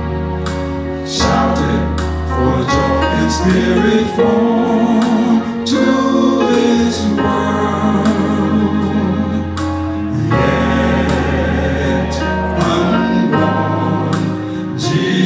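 Gospel praise music: singing over a band accompaniment with a deep sustained bass line and regular percussive hits.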